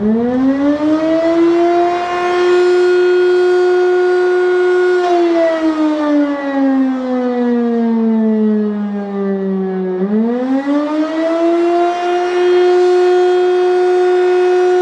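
Siemens FM SI 40 electric motor siren, a WWII-era air-raid siren, sounding a rising and falling wail during a siren test. Its pitch climbs over about two seconds, holds for about three, then sinks slowly for about five seconds before climbing and holding again.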